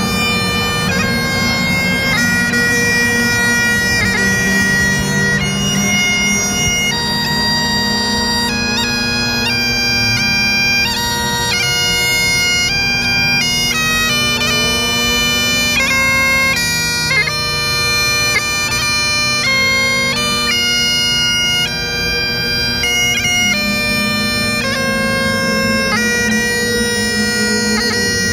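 Great Highland bagpipe played solo: a steady drone under a chanter melody that moves from note to note, with quick ornamental flicks between the held notes.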